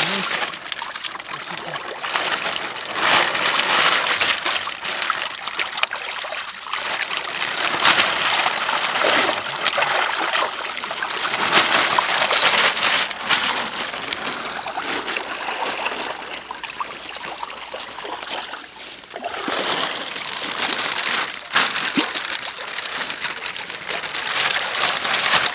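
Water splashing and trickling in irregular bursts as koi are netted and handled during a pond harvest.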